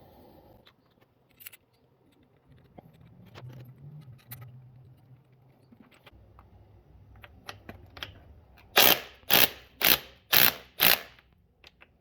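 Hand socket ratchet clicking in five quick, loud strokes about half a second apart near the end, after scattered faint clicks of tools and parts being handled.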